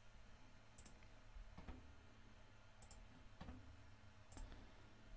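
Faint clicks of a computer mouse, about five spread a second or so apart, while a file is saved through a save dialog; otherwise near silence.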